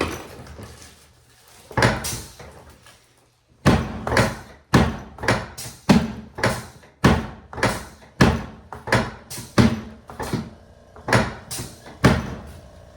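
Two thumps, then a fast, regular run of sharp knocks, about two a second, that stops about a second before the end.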